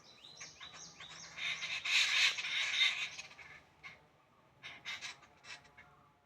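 Small birds chirping: a run of short falling calls, then a louder, busy cluster of calls for about two seconds, then a few scattered chirps near the end.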